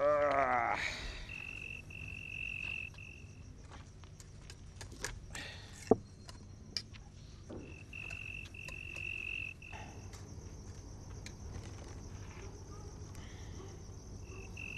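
Crickets chirping in long trills, each lasting about one and a half to two seconds, over a steady higher-pitched insect drone. A few sharp clicks come around the middle.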